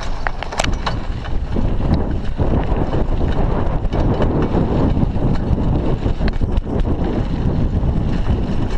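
Wind buffeting a chest-mounted action camera's microphone while a mountain bike rolls along a dirt road, mixed with the rumble of knobby tyres on loose gravel. There are a few sharp rattling clicks from the bike in the first second.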